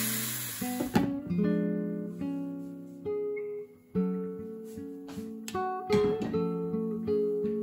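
Background music of plucked and strummed acoustic guitar. Under it for about the first second, chicken and vegetables sizzle as they fry in the pan; the sizzle cuts off suddenly.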